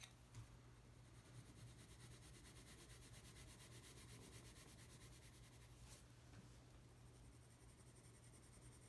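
Faint scratching of a colored pencil shading back and forth on paper, layering dark blue over teal to blend a gradient. A faint, steady low hum sits underneath.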